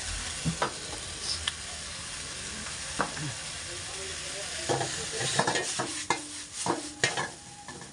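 Noodles and vegetables sizzling in a hot iron wok with a steady hiss, with a few scattered clinks. From about five to seven seconds in comes a busy run of metal clanks and scrapes as the wok is tossed and stirred.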